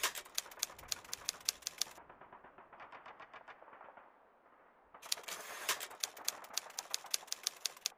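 Typewriter sound effect: quick key clicks, about six a second. They are loud for the first two seconds, softer for the next two, then loud again from about five seconds in.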